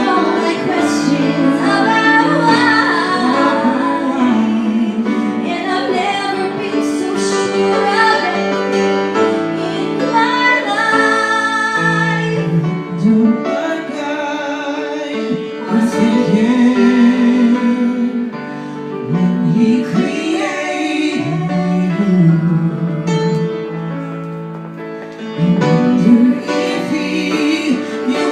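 A woman singing a slow song over instrumental accompaniment, holding long notes with vibrato.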